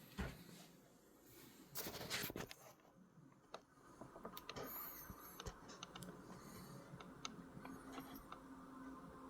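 Near silence, with faint scattered clicks and a brief rustle, and a faint wavering high chirp about five seconds in.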